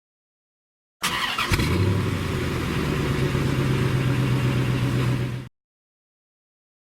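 Car engine starting, with a rough, clicky catch in the first half-second, then running steadily. It starts and cuts off abruptly, like an edited clip.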